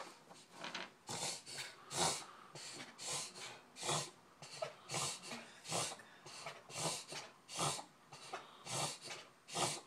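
A puggle (pug–beagle mix) breathing hard and noisily in a bout of its occasional breathing problem. It is a steady run of raspy, snorting breaths, about two a second.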